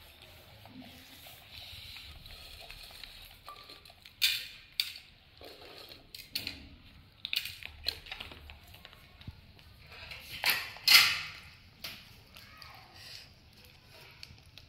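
Instant noodles crackling and crunching as macaques pick them apart and chew them, in short scattered bursts, the loudest pair about ten to eleven seconds in.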